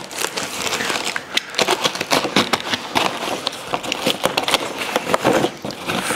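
Cardboard and plastic bubble wrap rustling and crinkling as packing is handled and pulled out of a shipping box, with many irregular crackles, scrapes and small knocks.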